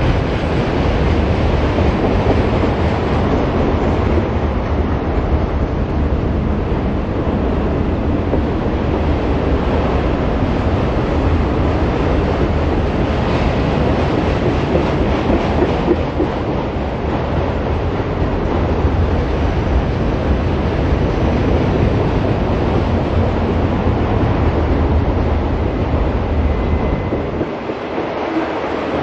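Freight train rolling past at close range: a steady, loud rumble of wheels on rail with no let-up. The deep rumble fades briefly near the end, then returns.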